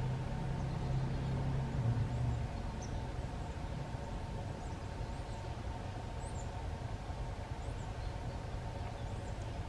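Low engine hum that dies away about two and a half seconds in, leaving a steady outdoor background with a few faint, high bird chirps.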